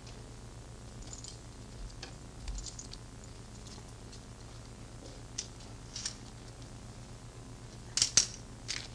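Steady low hum with scattered small clicks and taps. A sharp cluster of clicks about eight seconds in is the loudest.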